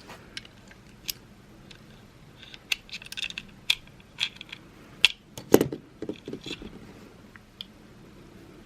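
Small hard clicks, taps and light scrapes from handling the opened plastic key fob and its CR2032 coin-cell battery, irregular and busiest in the middle, with one louder knock about five and a half seconds in.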